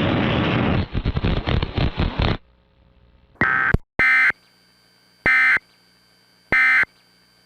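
Emergency Alert System End of Message signal: short bursts of digital data tones, the last three evenly spaced about a second apart, following a dense noisy hiss that cuts off about two seconds in.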